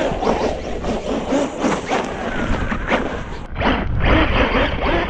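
Electric RC truck driving through snow: motor whine with the tyres churning and throwing snow, in uneven surges as the throttle comes and goes.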